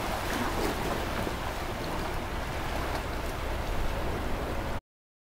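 Seawater from a spring high tide rushing and lapping across a flooded street as a steady watery noise, with low rumble from wind on the microphone. It cuts off suddenly near the end.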